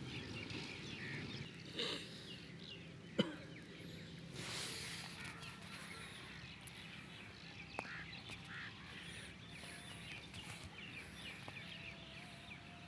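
Birds chirping and calling, many short chirps over a faint outdoor hiss, with a sharp click about three seconds in and a fainter one near eight seconds.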